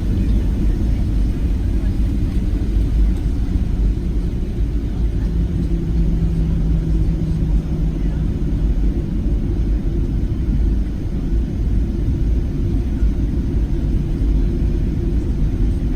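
Steady low rumble of a Boeing 737-700's CFM56 jet engines and airflow heard inside the passenger cabin, with a low steady hum rising above it for a few seconds midway.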